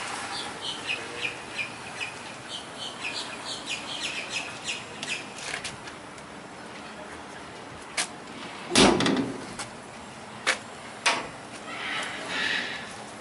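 Small birds chirping in quick, short, high notes for the first several seconds. Then a few sharp knocks and one loud thump near the middle, as of metal doors or panels being handled.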